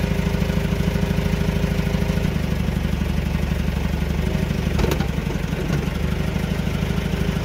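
JCB's diesel engine running steadily at idle with a fast even beat, and one sharp knock about five seconds in.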